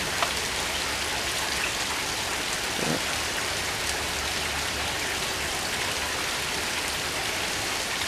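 Steady rain, an even hiss with no let-up, with a single sharp click just after the start.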